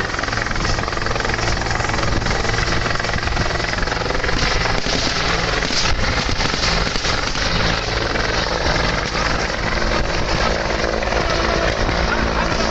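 Turbine helicopter running on the ground at close range, its main rotor turning. It makes a steady, loud mix of engine noise and rotor beat.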